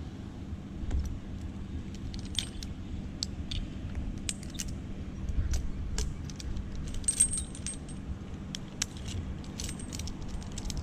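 Metal climbing hardware, such as carabiners and rigging gear, clinking and jingling in many light, irregular ticks over a steady low hum.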